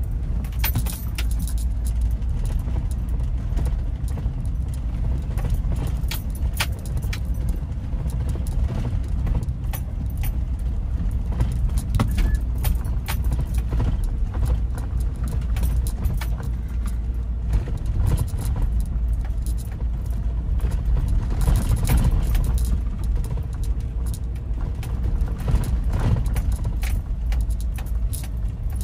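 A car being driven: a steady low road-and-engine rumble with frequent light rattling and jingling clicks throughout, busiest a little past the middle and again near the end.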